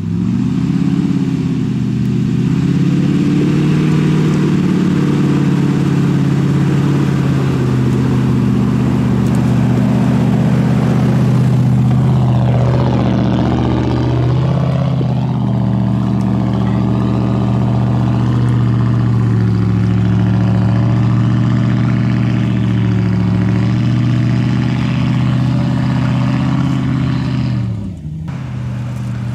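A modified Land Rover Discovery's V8, fitted with a tuned camshaft and a remap, running at low, fairly steady revs as it crawls off-road, its pitch rising and falling a little with the throttle.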